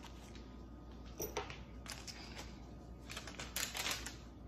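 Paper grocery receipt handled and rustled: a few faint, short crackles, more of them about three to four seconds in.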